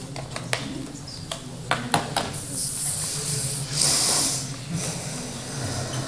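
Handling noise at a lectern while a laptop is set up: scattered light clicks and knocks, with two short hissing rustles close to the microphone about two and a half and four seconds in.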